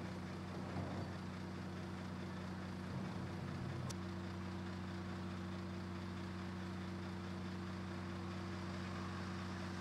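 Steady low drone of the container tilter's hydraulic power unit running while the tilter raises the container to vertical. A faint click about four seconds in.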